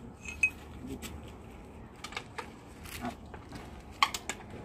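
Scattered light metallic clicks and clinks of a spanner and other hand tools working on engine fittings, a few sharp taps spread irregularly over the seconds, the loudest about four seconds in.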